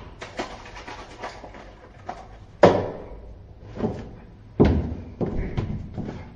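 Handling noises in a small room: a series of knocks and thuds, the loudest about two and a half seconds in and another near five seconds, with lighter clicks and taps between.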